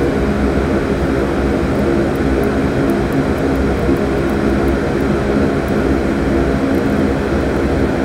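Solder smoke absorber (fume extractor) fan running steadily, a constant airy drone with a low hum.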